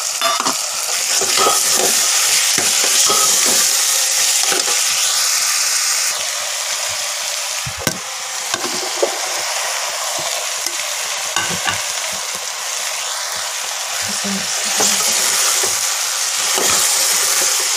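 Tomato masala sizzling in a pressure cooker as sliced mushrooms are tipped in and stirred through with a steel ladle. The ladle knocks and scrapes against the pot now and then over a steady frying hiss.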